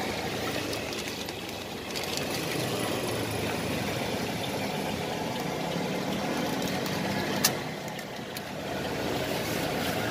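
A vehicle engine running steadily, with one sharp click about seven and a half seconds in.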